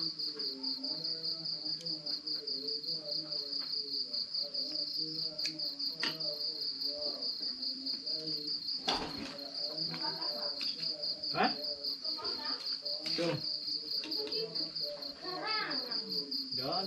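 A cricket trilling steadily in fast, even pulses at a high pitch. Over it come a few sharp clinks of a spatula against a metal wok in the second half.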